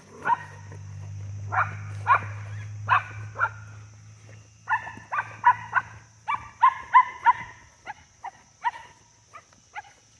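Small dog barking repeatedly at a deer: about twenty sharp, high-pitched barks, coming quicker in a run about halfway through.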